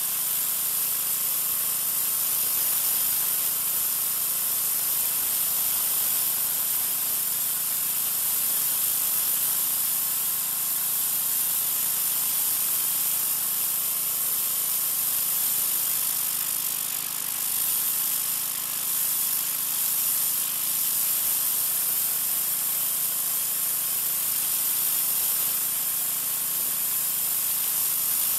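Troy-Bilt 2200 psi pressure washer running steadily, its oscillating-tip spray hissing against concrete, with the engine's steady hum underneath. The spray dips briefly a little past halfway.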